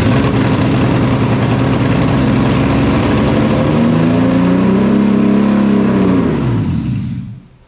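Subaru EG33 3.3-litre flat-six running just after a jump-started cold start, its revs swelling up and dropping back in the middle, then stopping abruptly near the end. The engine isn't liking idle, which the owner puts down to a large vacuum leak.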